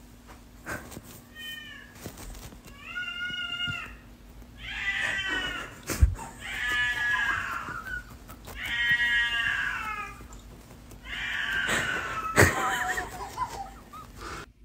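A cat meowing over and over: six long, drawn-out calls about a second apart, the first one faint. Two sharp knocks come through, about six and twelve seconds in.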